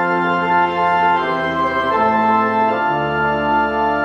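Organ playing a short series of sustained chords, the harmony changing about every second.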